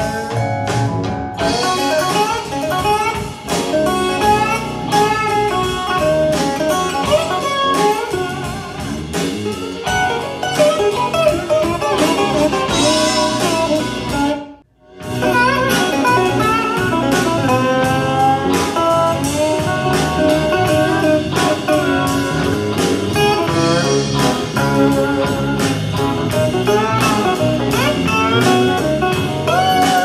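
Guitar-led music with drums playing through a JBL Charge 5 portable Bluetooth speaker. It cuts out for a moment about halfway through, and the music then continues on an Anker Soundcore Motion+ speaker.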